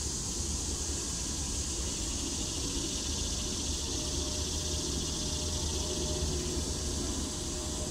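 Steady high-pitched insect chorus from the surrounding summer woods, over a low rumble of wind on the microphone.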